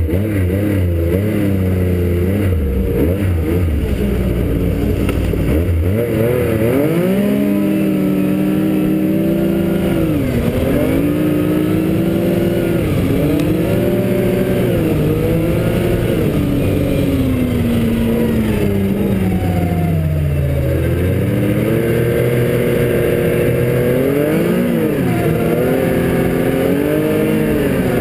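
Yamaha four-stroke snowmobile engine heard from on board, running under changing throttle: its pitch climbs as it speeds up and sinks as it eases off, again and again, with one long fall in pitch about two-thirds through before it picks up again.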